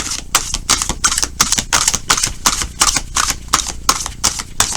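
Tarot cards being shuffled by hand: a quick, even run of papery slaps, about five a second.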